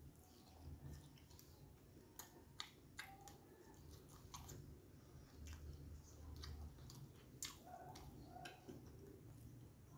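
Faint, close-up chewing of martabak with the mouth full, with scattered sharp mouth clicks and smacks over a low steady hum.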